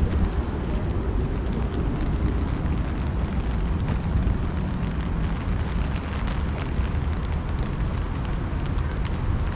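Wind buffeting the microphone in a steady low rumble, over the hiss of rain, with faint light ticks in the second half.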